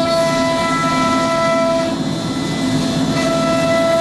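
MultiCam 5000 Series CNC router running, a steady high-pitched spindle whine over a rough low hum. The whine fades for about a second around the middle, then comes back.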